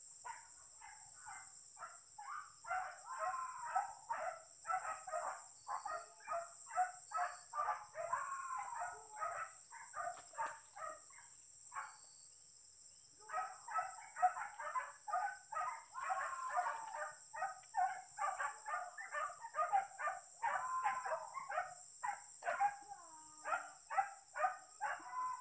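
Hunting dogs barking in rapid runs, about three barks a second, on a wild boar chase. There are two long bouts with a pause of a few seconds between them, over a steady high-pitched drone.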